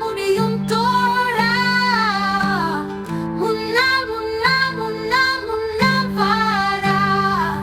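Background music: a woman singing a melody over guitar accompaniment.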